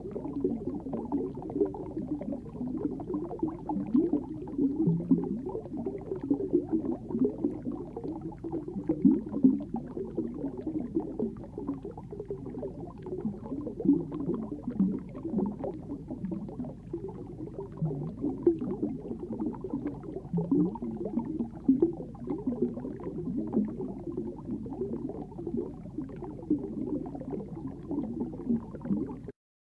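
Muffled underwater ambience picked up by a submerged camera: a steady bubbling, gurgling water noise full of small irregular crackles, which cuts off suddenly near the end.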